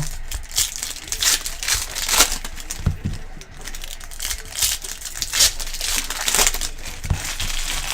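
Plastic wrappers of Panini Prizm trading card packs being torn open and crinkled by hand, in irregular bursts of crackling.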